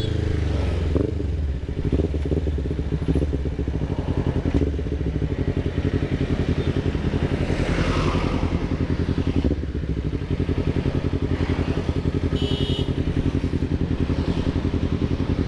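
Kawasaki Ninja 250 FI parallel-twin engine running through a DX Generation RVR Short aftermarket exhaust while riding, with a deep, bassy note. The revs drop in the first second, then hold fairly steady at a low cruise.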